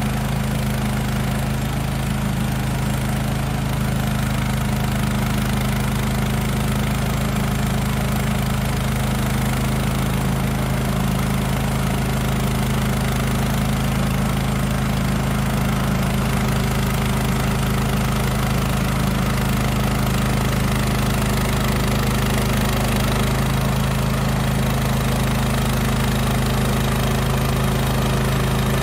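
Woodland Mills HM126 portable sawmill's engine running steadily at constant speed while its band blade cuts through a cedar log, throwing sawdust.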